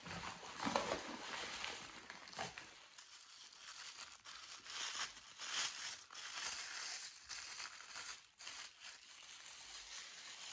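Thin white wrapping paper crinkling and rustling as a gift is unwrapped by hand, in uneven bursts of crackle.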